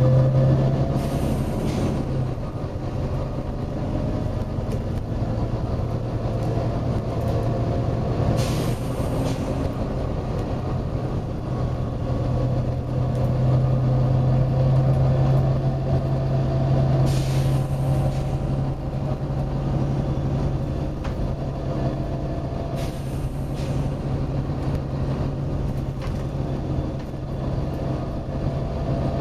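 Volvo B9TL bus's diesel engine running steadily, with four short hisses of air from its air system, a few seconds apart.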